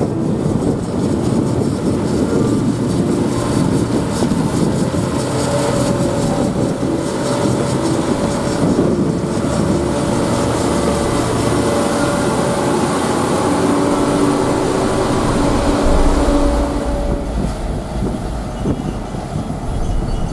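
Diesel potato-harvesting machinery running steadily under load, a dense mechanical rumble with held engine tones, getting deeper about three-quarters of the way through.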